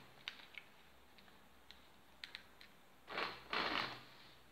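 Battery-operated Presu Wartburg 311 toy car's small electric motor whirring in two short spurts about three seconds in, driven from its wired hand control. A few light clicks come before it.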